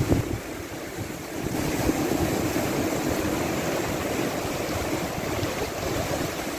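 Sea surf breaking and washing up a sandy beach, a steady rushing wash, with wind buffeting the microphone around the start.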